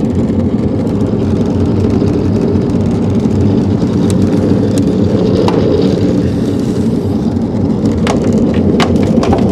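Jet boat's engine running at low speed, a steady drone as the boat creeps forward. A few short sharp clicks come near the end.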